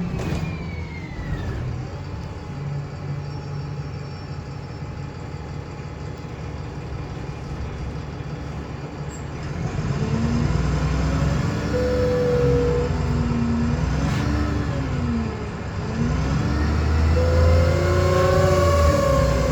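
VDL SB200 bus running with a whirring whine, its pitch climbing and falling back several times as the bus speeds up and slows. A thin high whine falls away near the start, and the running grows louder from about halfway through.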